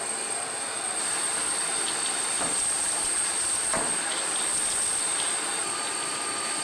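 Steady hiss of water spray with a continuous high-pitched turbine whine from an AH-64E Apache helicopter taxiing through a water-cannon salute. Two faint swishes come near the middle.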